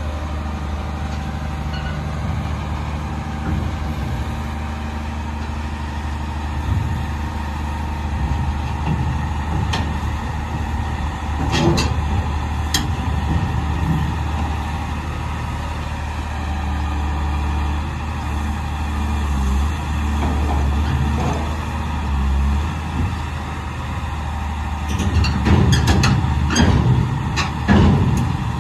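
LiuGong 50-ton crawler excavator's diesel engine running steadily. Sharp metallic clanks come about twelve seconds in, then a louder cluster of clanks and knocks near the end.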